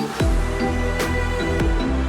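Electronic outro music with a heavy bass and a regular drum beat, the bass coming in just after the start.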